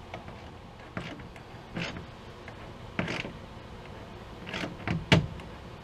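A wrench working on the bolts of a pop-up camper's crank assembly: a handful of separate metal clanks and scrapes, coming closer together near the end, the loudest about five seconds in.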